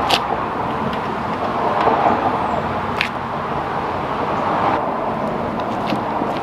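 Steady vehicle and road-traffic noise that swells and eases, with a couple of sharp metallic clicks.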